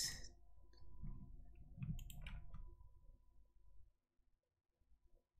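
A few faint computer mouse clicks about two seconds in, over a low hum.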